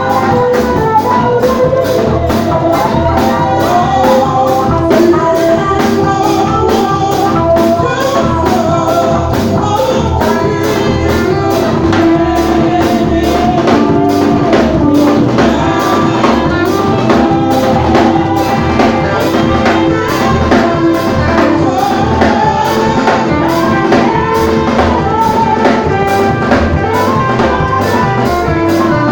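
Church praise band playing gospel music: drum kit keeping a steady beat under keyboard and guitar, with voices singing.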